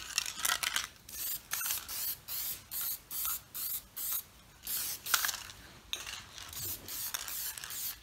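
Aerosol can of Watco clear lacquer spraying in short hissing bursts, about two a second, as a finish coat goes onto a carved wooden pencil blank.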